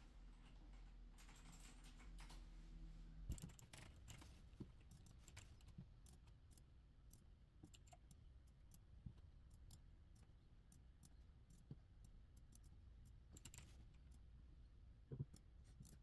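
Faint, scattered clicks of a computer mouse and keyboard, irregularly spaced, over a low hum, with a slightly louder knock about fifteen seconds in.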